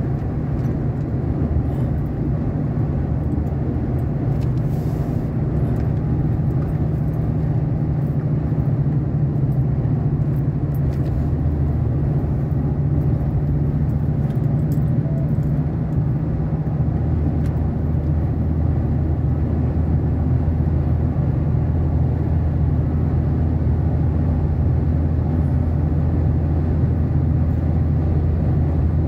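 Steady low engine drone and road noise inside a vehicle cab cruising at motorway speed. The deepest part of the drone strengthens a little about halfway through.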